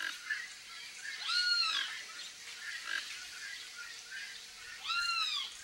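Toco toucan calling twice, about three and a half seconds apart. Each call is a short note that rises and then falls in pitch, with faint small chirps between the calls.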